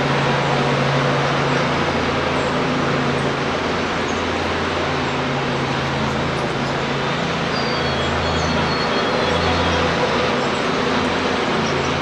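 Steady background roar with a low hum that swells and fades, of the traffic kind. A few faint, short, high chirps of small birds come through it, mostly in the middle of the stretch.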